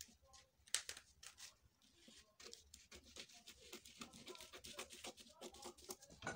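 Scissors snipping through a paper pattern sheet: a faint, irregular run of short snips, with the paper rustling as it is cut.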